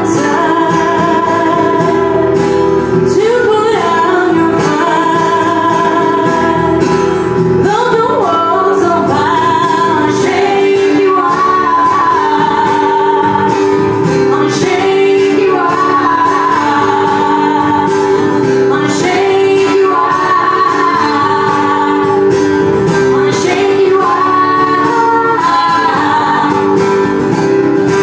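A woman singing held notes with a wavering vibrato, accompanied by a guitar.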